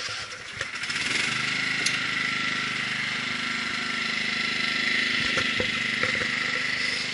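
Small engine of the barrel train's tow vehicle running steadily, picking up about a second in as the train pulls away, with a few light knocks from the barrel cars.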